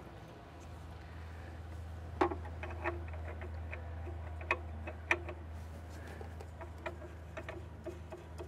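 Scattered light clicks and taps of hands fitting a new oil filter onto a golf cart's engine, irregular and a little stronger about two and five seconds in, over a steady low hum.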